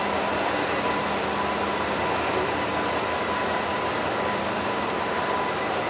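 A train standing at the platform gives out a steady rushing hiss with a faint steady hum underneath.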